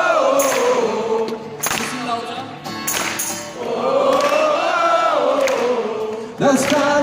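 Live pop-rock concert: many voices singing the long "oh, oh, oh" chorus together over the band, in two drawn-out rising-and-falling phrases. About six and a half seconds in, the band moves into a new section with steady held notes.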